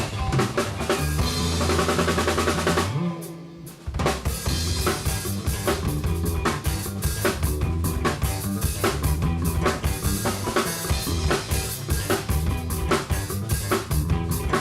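Live band playing loudly, the drum kit to the fore with snare and kick driving the beat. About three seconds in the band drops out for roughly a second, then crashes back in together.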